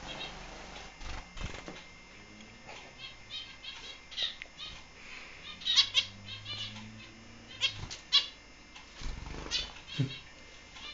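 Zebra finches calling: short, nasal, beeping calls repeated in quick runs, with a few louder single calls.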